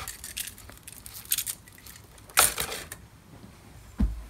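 Small metal parts and a coiled steel-armoured DRO read-head cable being handled by hand, clinking and rattling. There is a louder rattling scrape about two and a half seconds in and a dull knock near the end.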